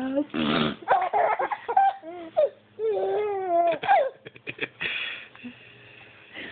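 A baby cooing and squealing in a run of short, high-pitched calls that rise and fall in pitch, with a quick patter of clicks about four and a half seconds in.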